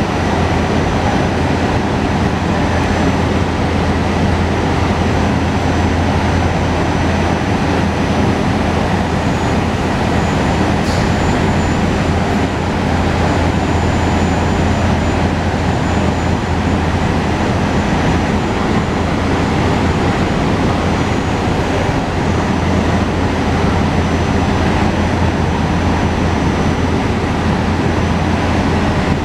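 SEPTA Regional Rail electric train at the station platform, giving a loud, steady rumble and hum that holds at one level throughout.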